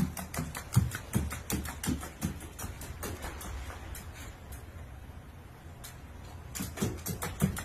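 Rapid repeated clicking taps with soft thumps, about four to five a second, over a steady low hum; the taps weaken partway through and grow strong again near the end.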